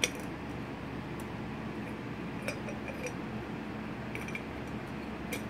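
A small glass candle holder being handled while a battery tea light is set inside it: a few faint, scattered clicks and taps of plastic against glass.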